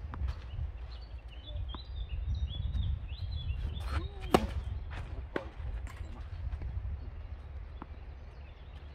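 Tennis racket striking the ball on a serve about four seconds in, a single sharp crack, followed by fainter hits from the far end of the court as the rally goes on. Small birds chirp in the first few seconds over a low wind rumble on the microphone.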